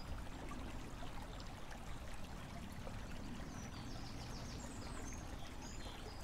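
A small stream trickling faintly, with a small bird singing a repeated high two-note phrase and a short quick trill near the middle.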